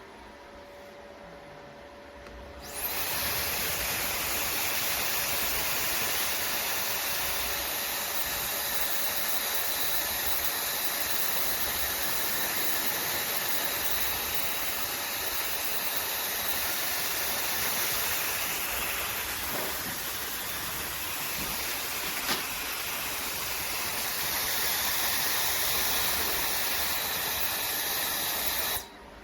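Hair dryer switched on about three seconds in, blowing air steadily with a faint high whine, then switched off shortly before the end.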